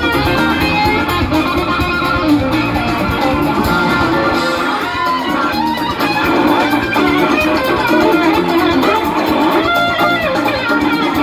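Live rock band playing loudly, two electric guitars over drums and bass, with a lead guitar line of gliding, bent notes about five and ten seconds in.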